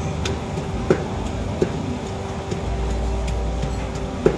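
Wooden pestle pounding som tam (papaya salad) in a clay mortar: a run of dull knocks, a few a second, with some louder strikes, over a steady low hum.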